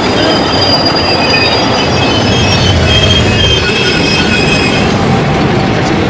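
Metro train braking into a station platform: a steady rumble of wheels on rail with several high squealing tones from the wheels and brakes, which fade out about five seconds in as the train comes to a stop.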